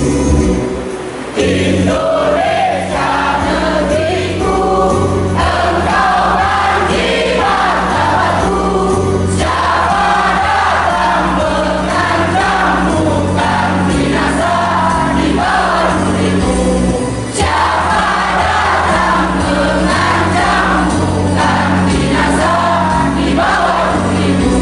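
A large crowd singing an anthem together in unison over music accompaniment.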